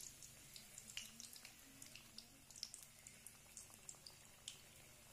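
Samosas deep-frying in a kadai of hot oil on a low flame: faint, irregular crackling and popping of the oil.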